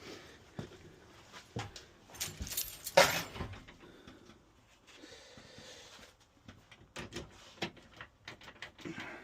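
Scattered clicks, knocks and metallic rattles of gear being handled, with one loud clank-and-rattle about three seconds in.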